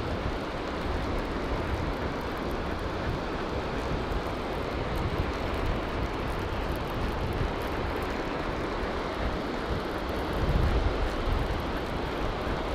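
Steady rumbling wind buffeting the microphone, with a stronger gust about ten seconds in.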